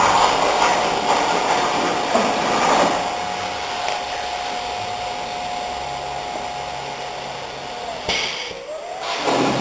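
Miller Spectrum 875 plasma cutter power source running: a steady rush of fan and air noise with a thin steady whine. About eight seconds in a click is heard, the hiss drops away briefly and the whine sags and comes back up.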